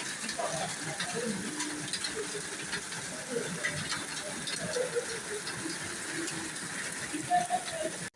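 Steady rain, an even hiss sprinkled with small drop ticks, with faint distant voices underneath. It cuts off abruptly near the end.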